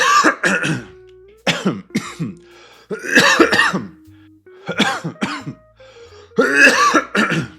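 A person coughing in repeated fits, about five bursts a second or so apart. It is a persistent cough of about three weeks, which he takes for long COVID or flu.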